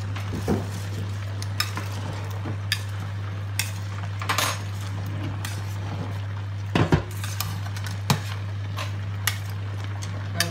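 Kitchen tongs knocking against the side of a stainless steel pot while stirring spaghetti in boiling water: about eight sharp knocks, the loudest pair about seven seconds in, over a steady hiss and a low hum.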